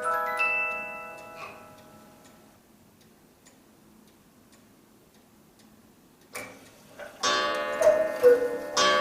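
Cuckoo clock with an 8-day Regula movement: its music box finishes a tune in the first second or two and the notes die away, leaving faint ticking. After about six seconds a click from the movement, then the cuckoo call starts, a falling two-note bellows whistle repeated.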